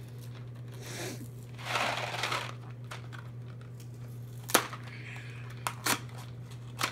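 Small cardboard candy box being torn open by hand: a crinkling tear about two seconds in, then a few sharp snaps and clicks as the flap is worked loose.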